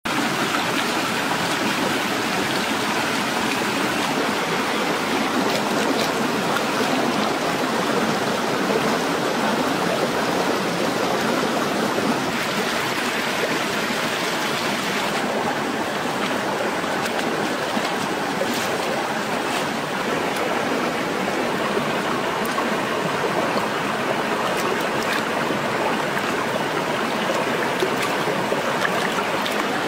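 Shallow rocky stream flowing steadily, with a few faint small splashes and ticks from hands washing things in the water.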